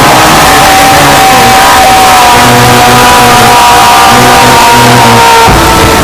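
Heavily distorted music played at clipping level: a simple melody and repeated bass notes buried under harsh noise, switching abruptly to another section near the end.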